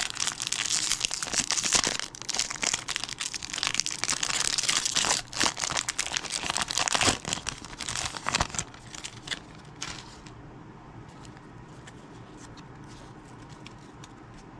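Plastic wrapper of a Panini Donruss football card pack crinkling and tearing as it is opened, dense crackling for about eight seconds, then a few scattered crackles before it dies down.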